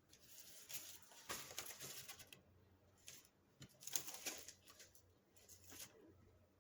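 Faint rustling and handling of paper and craft pieces on a desk, in two main spells of scratchy, crinkly noise with a shorter one near the end.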